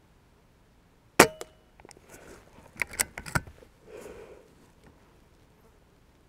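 Shrouded BSA Ultra SE .22 PCP air rifle firing once, a sharp crack with a short ring about a second in. About a second and a half later comes a cluster of quick clicks as the bolt is cycled for the next pellet.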